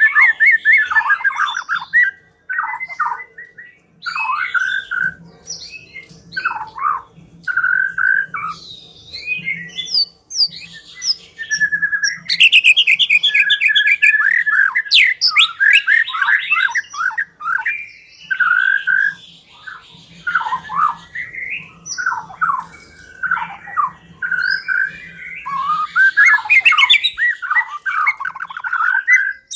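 White-rumped shama (murai batu) singing a long, varied song of whistled phrases and rapid runs of notes, broken by short pauses. It is a lure recording of the kind played to provoke shamas into singing.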